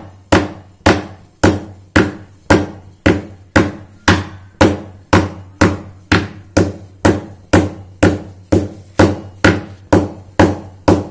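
Dried lesser galangal (sitharathai) being pounded by hand for a herbal kasayam: even, steady strikes about two a second, each with a short ringing tail.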